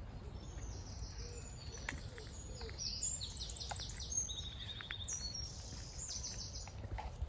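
Small birds singing in the hedgerow: quick high chirps and trills, one a fast repeated run, over a steady low rumble.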